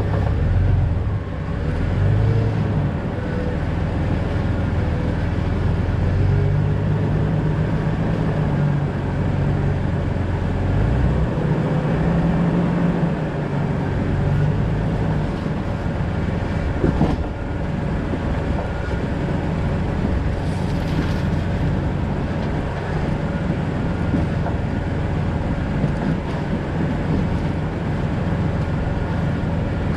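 A 2000 Jeep Cherokee XJ driving, its engine running with a steady drone under road noise. The engine note shifts for a while in the first half, and there is a single sharp knock about halfway through.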